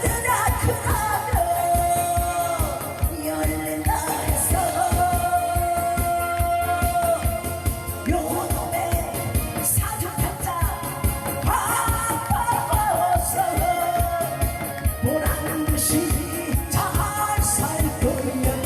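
A singer performing a Korean trot song live through a microphone, over amplified accompaniment with a steady beat; long held notes bend up and down between phrases.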